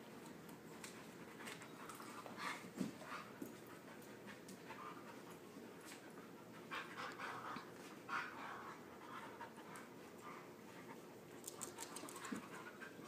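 A husky puppy and another dog faintly panting and scuffling as they play-wrestle, with a few soft knocks and clicks.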